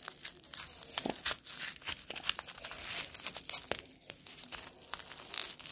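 Small piece of clear bubble wrap crinkling and crackling in the fingers as a taped item is unwrapped, with many irregular sharp clicks.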